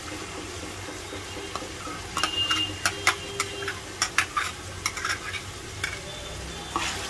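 Onion paste and whole spices sizzling steadily in hot oil, with a run of sharp clicks and scrapes, thickest from about two to five seconds in, as a steel ladle scrapes garlic paste off a ceramic bowl into the pot.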